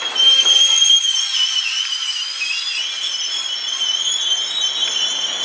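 Steel wheels of Amtrak Superliner passenger cars squealing against the rails on a curve as the train rolls slowly past: a wavering, high-pitched screech of several pitches at once, with a few light clicks in the first second.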